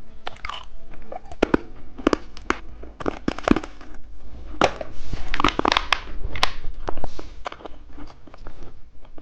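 Close-miked crunching and crinkling of a rainbow lollipop and its plastic wrapper: irregular sharp crackles, densest about five to seven seconds in.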